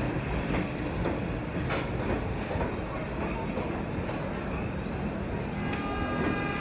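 New York City subway train running alongside an elevated platform: a steady rumble with wheels clacking over the rail joints. Near the end a thin, high wheel squeal comes in.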